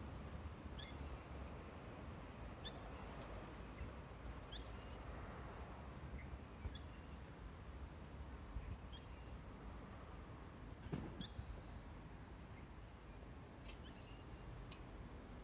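Juvenile common moorhens peeping: short, high, falling calls repeated every second or two, over a faint low rumble of wind. A soft thump sounds about eleven seconds in.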